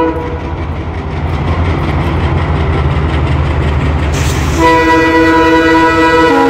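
WDP4B diesel locomotive approaching at the head of an express train: a low rumble of engine and wheels, then about four and a half seconds in its air horn sounds a loud, held chord of several tones.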